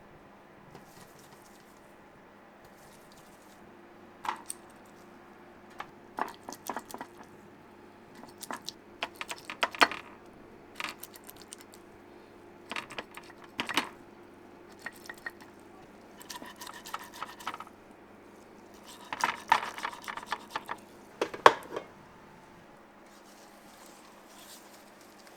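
Bakery kitchen work: metal baking pans and utensils clinking and knocking in irregular clusters, some with a short metallic ring. A steady machine hum runs underneath.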